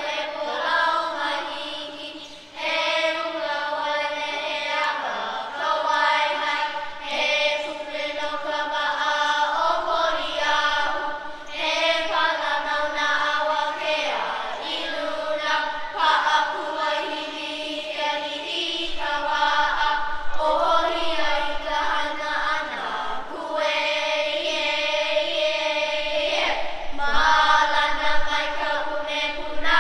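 A group of children chanting a Hawaiian oli in unison, long held phrases broken every few seconds by short pauses for breath.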